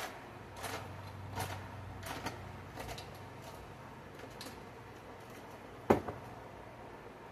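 Kitchen items being handled on a counter: a run of light clicks and knocks, then a sharp knock about six seconds in, followed by a smaller one.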